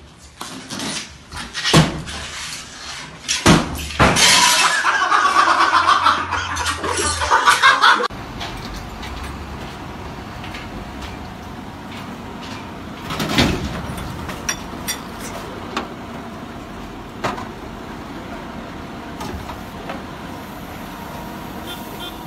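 Several heavy knocks and a few seconds of loud crashing noise, then a lorry's engine running steadily while building debris spills off its raised tipper bed, with one loud crash about thirteen seconds in.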